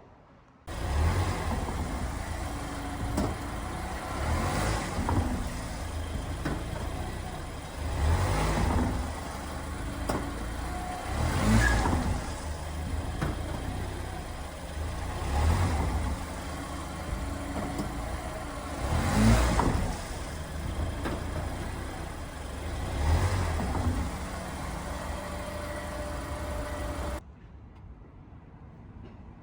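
Mazda Demio driving with steady road and engine noise, hitting a heavy thump about every four seconds, six in all, as it goes over bumps: the clunk over bumps that is traced to the shock absorbers.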